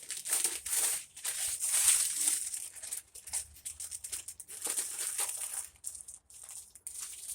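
Wrapping paper crinkling and tearing in irregular bursts as a gift box is unwrapped by hand.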